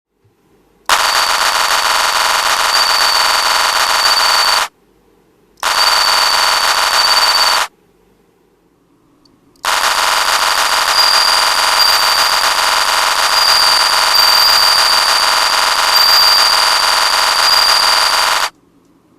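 A beatboxer's mouth imitation of a bell cricket's song: a rapid buzzing trill with a steady high whistle on top. It comes in three stretches that start and stop sharply, the last about nine seconds long.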